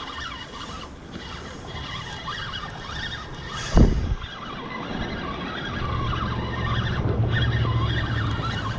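Low rumble of traffic on the bridge overhead, building over the last few seconds, with a single sharp thump about four seconds in.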